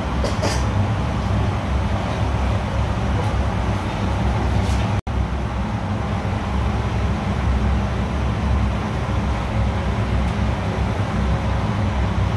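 Steady low rumble and hum of commercial kitchen machinery, with a couple of light clinks, one about half a second in and one near five seconds. The sound cuts out for an instant about five seconds in.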